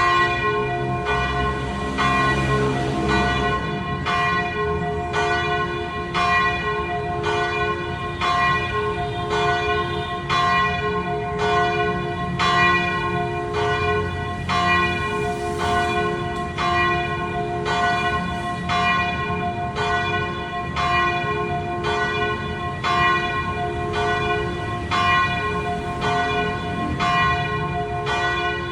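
Church bells ringing in a steady peal, a strike about once a second, each bell's tone ringing on over the next.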